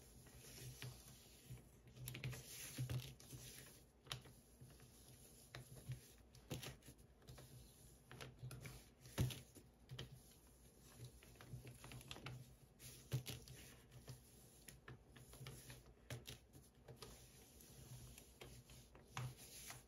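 Faint, irregular small clicks and light scratching of a heated wax-painting stylus tip dabbing and dragging across a waxed card, over a faint steady low hum.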